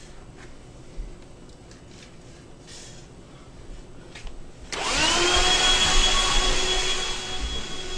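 A few soft clicks, then about five seconds in an electric motor switches on: its whine rises quickly in pitch and settles into a steady whine over a loud rush of air.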